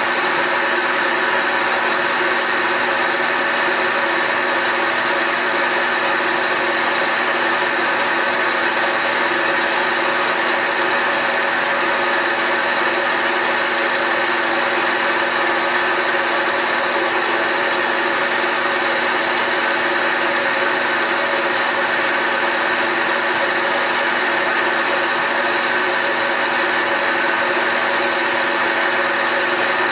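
Small belt-driven lathe, a Smart & Brown Model L, running steadily under power, its motor and drive making a constant whine with several fixed tones.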